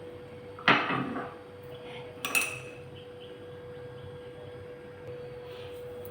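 Kitchen vessels and cups being handled: a clatter about a second in, then a sharper ringing clink a second and a half later, over a steady faint hum.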